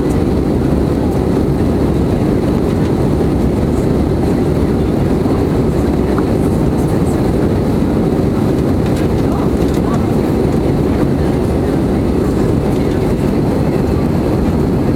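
Airbus A320 cabin noise in the climb: the engines and the airflow past the fuselage heard from inside the cabin as a steady, low rush, unchanging throughout.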